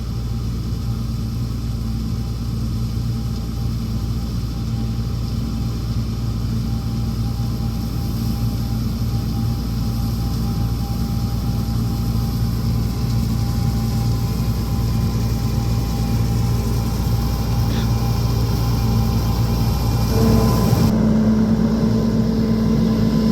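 Diesel engine of an almond harvesting machine running steadily, growing a little louder, with its engine note changing near the end.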